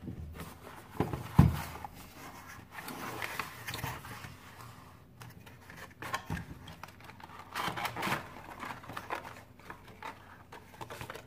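Cardboard packaging of an insulated screwdriver set being opened and its plastic holder handled: rustling, scraping and light clicks, with a sharp knock just over a second in.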